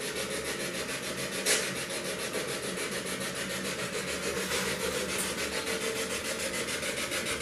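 Spirit box sweeping through radio stations: steady hissing static chopped by a fast, even pulse, with a brief louder blip about a second and a half in.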